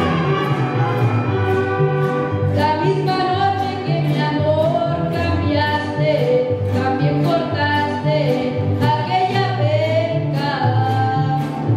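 A boy singing lead with a mariachi ensemble, his voice wavering in vibrato over a steady strummed rhythm about twice a second and an alternating guitarrón bass line.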